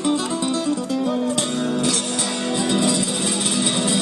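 Acoustic guitar playing a melody of separate plucked notes. About a second and a half in, a hiss of higher noise rises under it.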